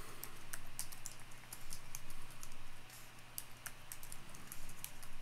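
Computer keyboard keys clicking as a password is typed and then typed again, in two quick runs of keystrokes with a pause of about a second between them, over a faint steady low hum.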